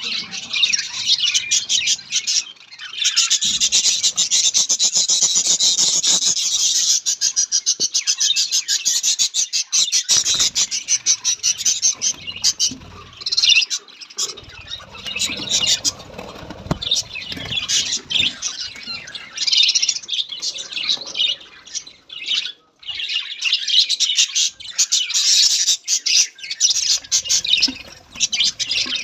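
Pet budgerigars chattering and chirping, a dense run of rapid, high chirps that thins out now and then.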